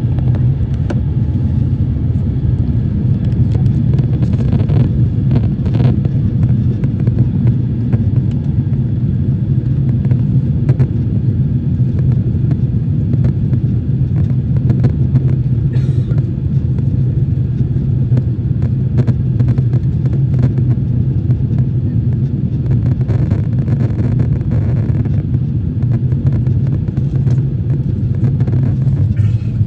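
Steady, loud, low rumble inside the cabin of an Airbus A350-900: the Rolls-Royce Trent XWB turbofans and airflow under power.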